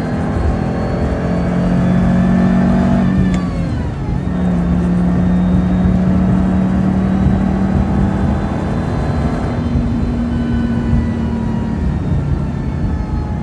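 Supercharged Subaru FB25 flat-four accelerating hard under boost. The revs fall sharply about three seconds in, then climb again, and the throttle is lifted about two-thirds of the way through.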